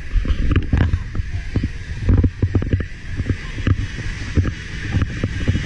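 Wind buffeting the microphone in irregular gusts over the steady hiss and rumble of motor scooter traffic.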